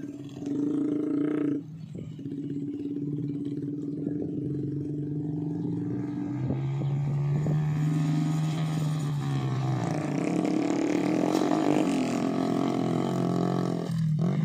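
Homemade trail motorbike engine running and revving, its pitch rising and falling several times.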